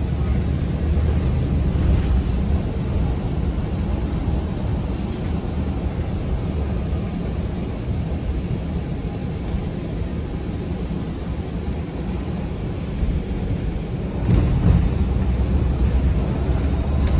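Cabin noise inside a moving city bus: a steady low rumble of running gear and road, growing louder about fourteen seconds in.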